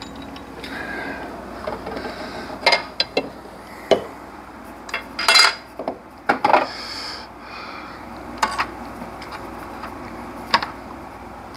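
Metal hand tools clinking and knocking against car engine parts: an irregular series of sharp metallic clinks and clanks, some louder than others.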